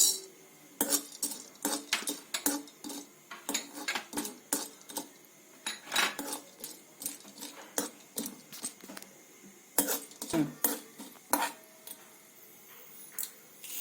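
Metal spoon clinking and scraping against a pan while stirring chana dal frying in a little oil, in irregular strokes about once or twice a second, with a short pause near the end.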